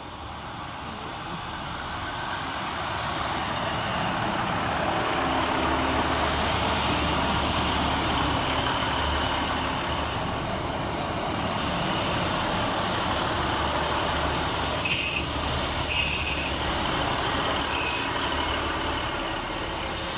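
A pair of Class 150 Sprinter diesel multiple units running past, with a steady rumble of Cummins diesel engines and wheels on rail that builds over the first few seconds. Near the end come three short, loud, high-pitched wheel squeals.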